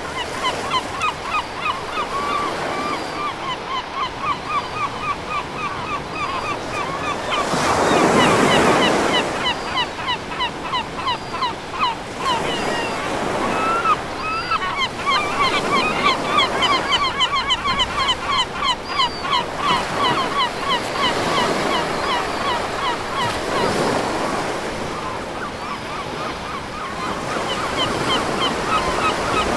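Ocean surf washing and breaking, swelling to its loudest about eight seconds in. Over it runs a long series of short, high chirping calls, several a second, with a few pauses.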